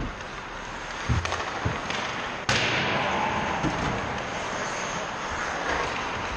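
Ice hockey play in an indoor rink: steady scraping and rink noise with a few dull knocks a little over a second in, and one sharp crack about two and a half seconds in that echoes through the arena.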